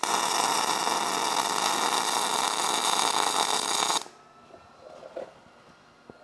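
MIG welding arc laying a bead where a steel sleeve meets a steel tube: a steady crackle for about four seconds that stops abruptly.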